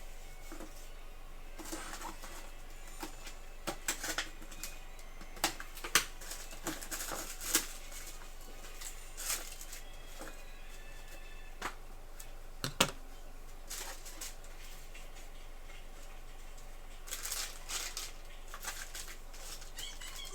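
Scattered clicks, taps and rustling as a meat delivery box is unpacked and its packages of meat are handled, with a denser stretch of crinkling near the end.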